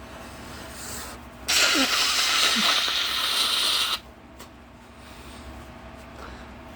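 A person blowing their nose hard into a tissue to clear a congested nose: one loud blow of about two and a half seconds, starting about a second and a half in and cutting off sharply.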